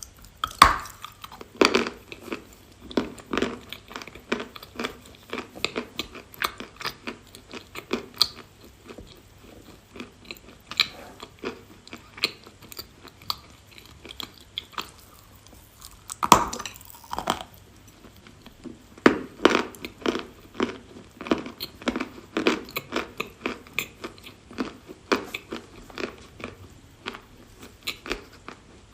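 A person biting into and chewing a piece of edible clay, with crisp crunches. A loud bite comes about half a second in and another about midway, each followed by a run of quicker crunches.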